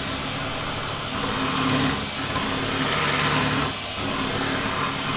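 Electric hand mixer running steadily, its beaters whipping cream in a glass bowl, with brief dips in the motor sound a couple of times.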